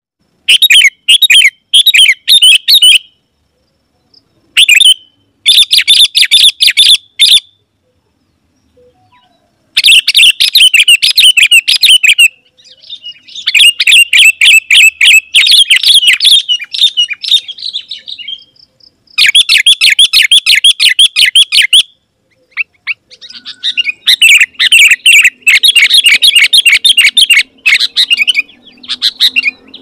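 Sooty-headed bulbul singing loudly and vigorously, in bursts of fast chattering notes one to three seconds long with short pauses between, and a longer pause about eight seconds in.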